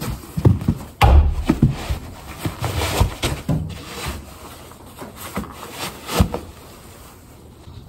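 Lace-up winter boots being pulled on: rubbing and rustling of boot and jeans, broken by a few irregular thumps of the boots against the floor, the loudest about a second in.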